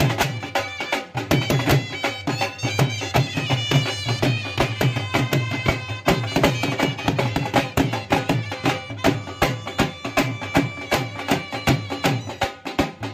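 Traditional folk music with a fast, steady drumbeat under a high melody.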